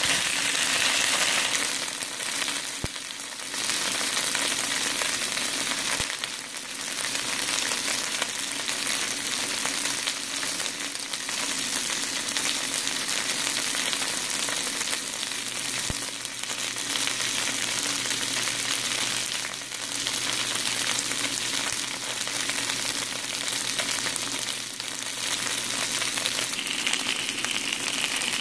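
Slices of Chinese carrot rice cake (white radish cake) sizzling steadily in hot oil in a nonstick frying pan, with a few brief lulls.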